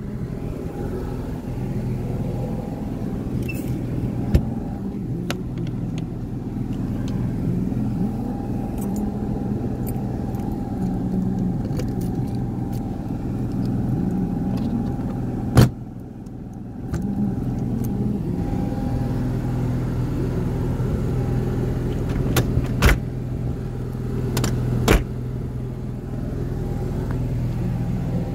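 An engine idling steadily, a low even hum. A few sharp clicks break in, the loudest about midway, after which the hum briefly drops away for a couple of seconds.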